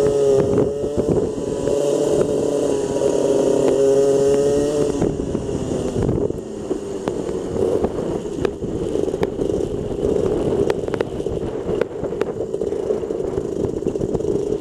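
Rotax Max 125cc two-stroke kart engine running at steady revs. About five seconds in it drops to rough, uneven low-speed running, with repeated clattering knocks as the kart rolls slowly.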